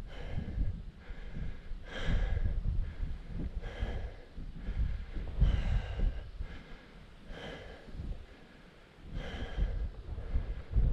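A walker breathing hard close to the microphone, a breath about every two seconds, over a low rumble on the microphone.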